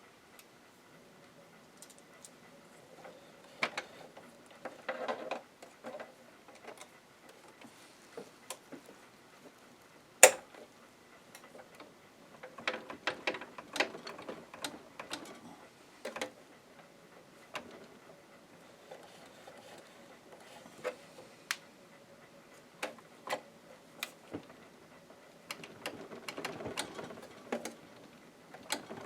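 Irregular clicks, taps and light rattles of hands and tools working on a Janome ME4014 sewing machine's plastic casing and parts during disassembly, coming in clusters, with one sharp click about ten seconds in.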